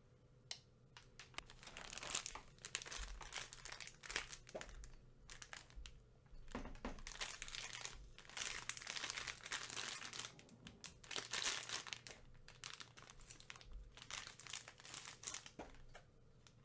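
Plastic candy and snack wrappers crinkling as they are handled and turned over, in irregular crackling bursts with sharp clicks.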